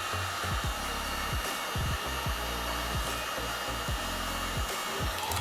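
Hot-air tool blowing steadily, a hair-dryer-like rush of air, warming a phone's frame to loosen a stuck board; it cuts off shortly before the end. Soft background music plays underneath.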